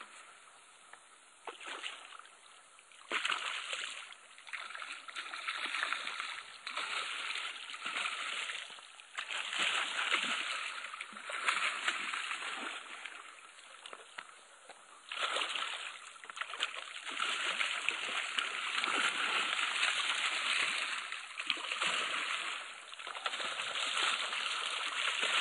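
A hooked snook thrashing and splashing at the surface as it is brought alongside to be landed. The splashing comes in irregular bursts and grows heavier and more continuous in the second half.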